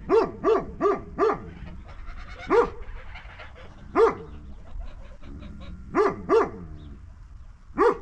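A series of short, loud animal calls, each dropping sharply in pitch: four in quick succession right away, then single calls about two and a half and four seconds in, a pair near six seconds, and one more at the very end.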